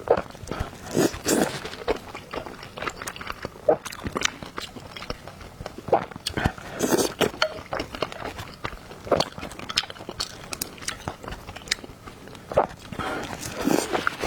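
Close-miked eating: a person chewing and biting, with irregular wet mouth clicks and smacks.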